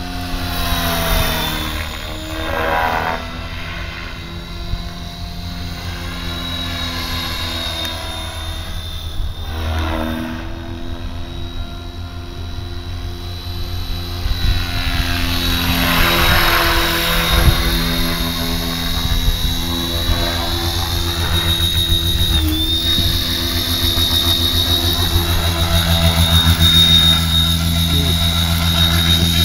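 Electric RC helicopter in flight: the high whine of its brushless Scorpion motor and drivetrain over the rotor blades. The sound swells and sweeps in pitch several times as it passes, and grows louder near the end as it comes down low.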